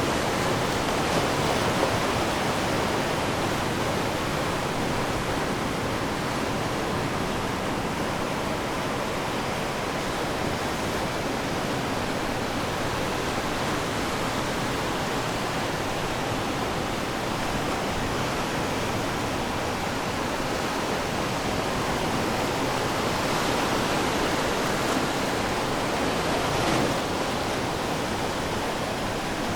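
Ocean surf washing onto the shore: a steady rush of breaking waves that swells gently now and then, a little louder near the end.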